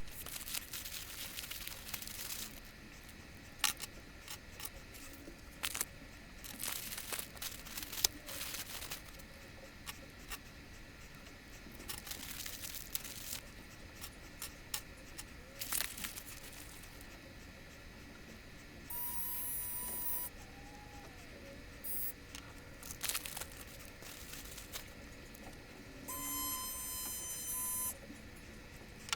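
Packaging and small plastic parts being handled: scattered clicks and crinkling. Two steady tones are heard, a short one about two-thirds of the way in and a longer one near the end.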